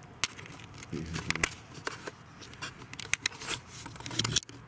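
Handling noise from fingers on a handheld camera: irregular clicks, scrapes and crackles, with a few dull thumps about a second in and near the end.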